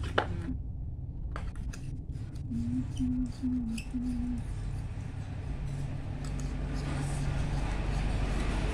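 Small clicks, knocks and scrapes of plastic LED bulbs being handled and screwed into the sockets of a power strip, with a sharp click just after the start. A steady low hum runs underneath.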